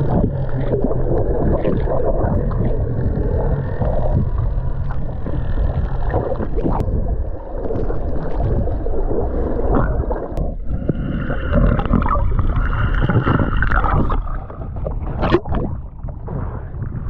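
Speedboat running over the water: a steady engine rumble with water rushing past.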